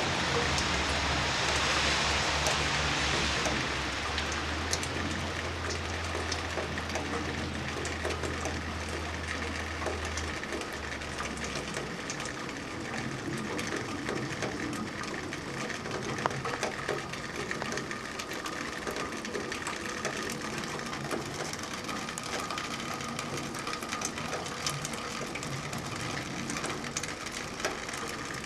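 Snowstorm ambience: a steady hiss with many small ticks, like wet snow pattering on surfaces. The hiss is louder for the first few seconds, and a low hum fades out about ten seconds in.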